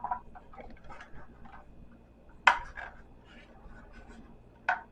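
Plastic parts and packaging being handled: light rustling and scattered small clicks, with a sharp click about two and a half seconds in and another near the end.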